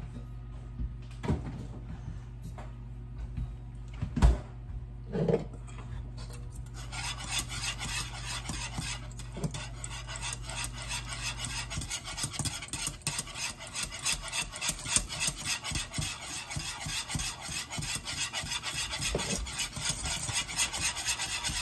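Wire whisk scraping rapidly around the bottom and sides of a metal pot, stirring a creamy milk sauce. Before the whisking starts, about seven seconds in, there are a few separate knocks, the loudest about four seconds in.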